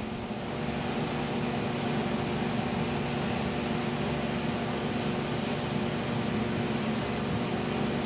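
Steady mechanical hum of a running machine: a constant low drone with several even, unchanging tones above it, with no knocks or clicks.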